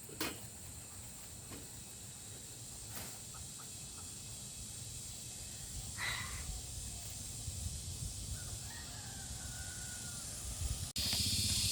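A rooster crowing faintly, one drawn-out call about two-thirds of the way through, over a steady background hiss. Near the end the sound cuts off abruptly and a louder hiss starts.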